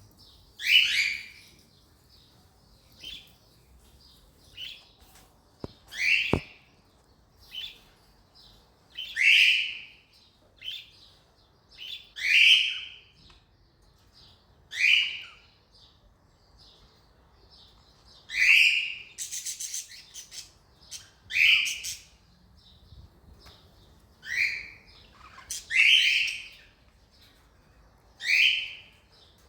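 Cockatiel calling: loud, high calls that slide downward in pitch, repeated every two to three seconds, with softer short chirps between them. A brief rapid rattle comes about two-thirds of the way through.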